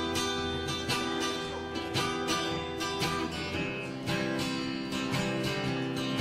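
Acoustic guitar strummed in a steady rhythm, sustained chords renewed by each stroke: the instrumental intro of a live song before the vocal comes in.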